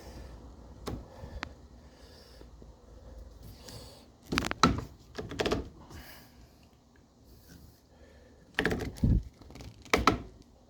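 Transducer mount being moved between positions: a series of sharp knocks and clunks in three clusters, the loudest in the middle and near the end.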